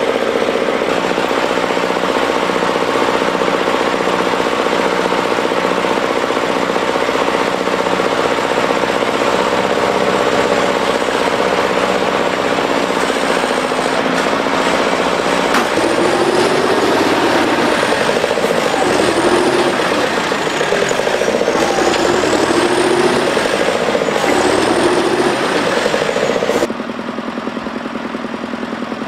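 Diesel tractor engines running hard with a steady clatter. About halfway through, the engine note starts to rise and fall repeatedly as the engine is worked, and near the end the sound cuts suddenly to a quieter, steady engine running.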